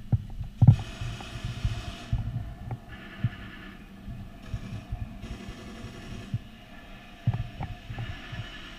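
Footsteps and gear movement: irregular low thumps with rustling and a few sharp clicks.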